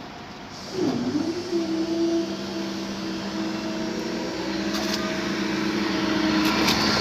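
Electric train approaching, its traction motors giving a steady two-note whine that sets in about a second in, over rising rumble that grows louder. A few sharp clicks come near the end.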